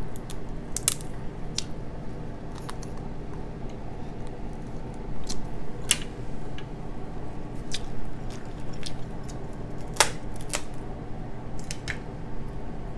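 King crab leg shells being snapped and picked apart by hand: scattered sharp cracks and clicks, the loudest about ten seconds in, over a steady low hum.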